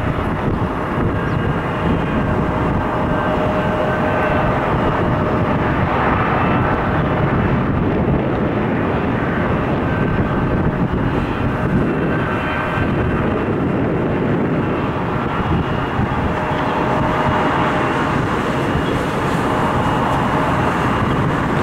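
Boeing 757-200's Pratt & Whitney PW2037 turbofan engines running at taxi power as the jet taxis past: a steady jet noise with a thin whine on top.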